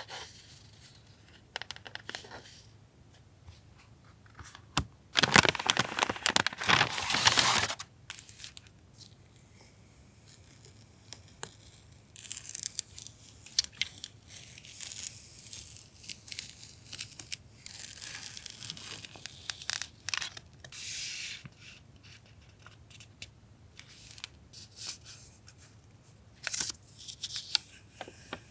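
Packaging torn open and crinkled by hand. The loudest stretch is a dense crackling tear about five seconds in, lasting around three seconds, followed by lighter, intermittent rustling.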